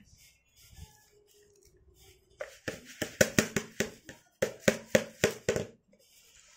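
Pink plastic basin of dry rice being knocked and jolted in two quick runs of taps, about six a second, the second starting about halfway through, as the rice is shaken over to one side of the basin.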